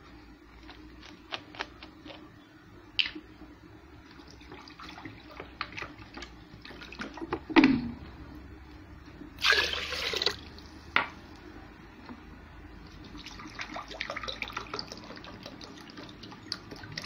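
Water splashing and dripping in an aluminium pot of rice soaking in water, heard as scattered small drips and splashes. There is one louder swish of water just past halfway, and a busier stretch of sloshing a little later.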